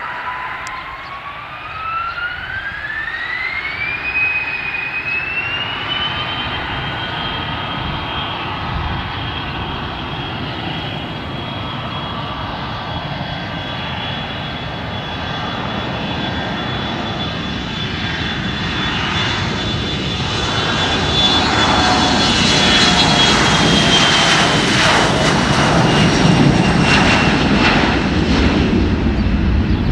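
Bombardier CRJ-1000 regional jet's rear-mounted turbofans spooling up to takeoff power: a whine rises in pitch over the first few seconds, then holds steady over a jet roar. The roar grows louder through the last third as the aircraft accelerates down the runway past the listener, and the whine drops slightly in pitch near the end.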